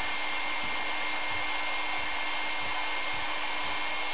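Heat gun running steadily: an even blowing hiss with a thin high whine, heating a chainsaw crankshaft's main bearing so it will come off the shaft.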